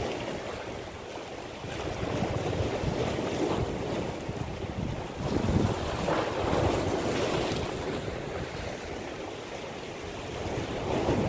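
Sea waves breaking and washing against shoreline rocks, with wind buffeting the microphone. The surf swells louder about five and a half seconds in and again near the end.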